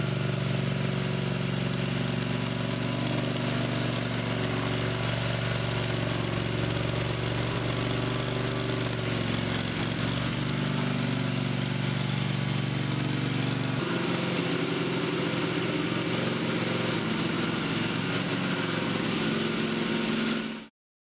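WerkMaster Titan XT propane-engine concrete floor grinder running steadily while grinding concrete with metal diamond tooling, edging close to the wall. Its tone shifts a little about two-thirds of the way through, and it cuts off abruptly near the end.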